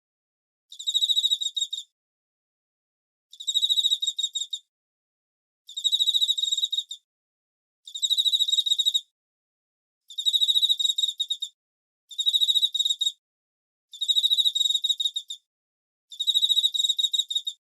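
Cricket calling: a series of chirping trills, each about a second long and made of rapid pulses on one high pitch, repeating about every two seconds with clean silence between them.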